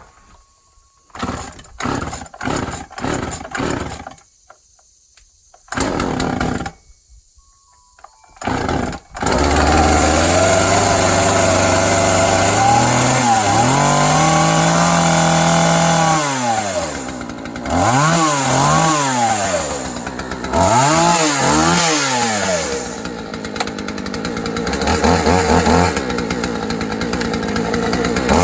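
Craftsman two-stroke chainsaw pull-started: several short pulls of the starter cord, and it catches after about nine seconds. It then runs loud and steady and is revved up and down repeatedly.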